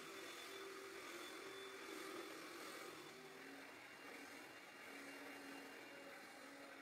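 Faint, steady whir of a cordless stick vacuum's motor, with a hum whose pitch drops a little about three seconds in.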